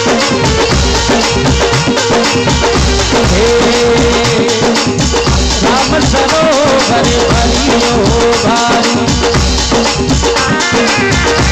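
Instrumental passage of Rajasthani folk devotional music: a steady drum beat with rattling percussion under a held tone, and a winding melody line in the middle.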